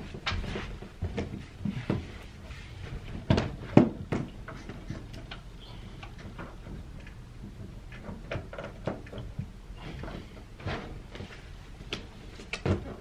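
Scattered knocks and clicks of hands handling a power cable and plug at the base of a large LED red light panel leaning against the wall. The loudest knocks come about three to four seconds in, with a few more near the end.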